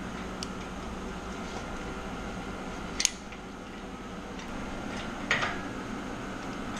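Handling clatter as a lifting strap is hooked onto an engine hoist: a sharp metallic click about three seconds in and a short scrape a couple of seconds later, over a steady mechanical hum.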